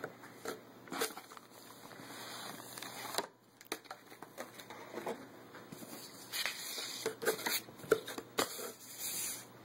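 Paper sheets being handled: rustling and shuffling, with scattered light taps and clicks.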